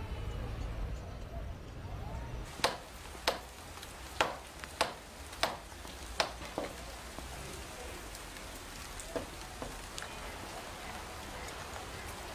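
Rain falling with a steady hiss, with a run of about seven sharp, loud drips of water landing roughly half a second apart, a few seconds in.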